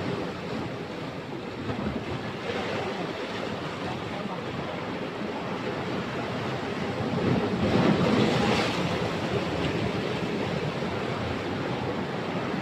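Sea waves washing in and breaking over shoreline rocks, a steady rush of surf; a bigger wave breaks louder about eight seconds in.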